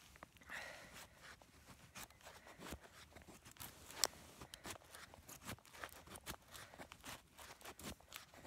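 Knife blade shaving thin curls off a split stick of wood to make a feather stick: a run of faint, short scraping strokes, with one sharp click about four seconds in.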